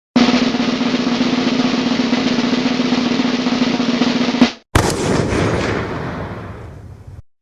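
Snare drum roll, rapid and even for about four seconds, then breaking off into a single crash that rings and fades away over a couple of seconds. This is the stock drum-roll-and-crash reveal sound effect.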